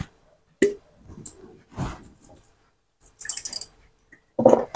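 Sauce bottles being handled on a kitchen worktop: a knock as a bottle is set down about half a second in, soft rustling and a brief crackle as the next bottle is picked up and opened, then a short voice-like sound near the end.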